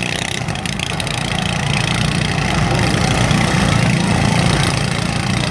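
Several riding lawn mower engines running together in a mower demolition derby, a steady mixed engine drone.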